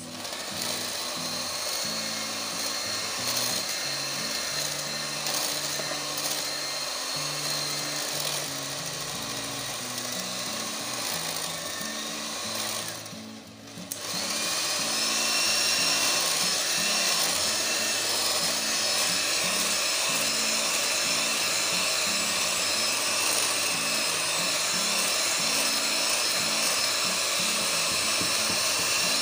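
Electric hand mixer running, its beaters whirring through flour and egg batter in a glass bowl. About halfway through it stops for about a second, then starts again and runs on louder and steady.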